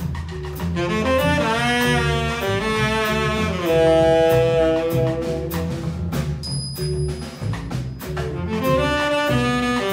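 Live jazz quartet playing: a saxophone carries the melody, with gliding notes, over walking double bass, piano and drums with cymbal strikes. The saxophone comes in about a second in.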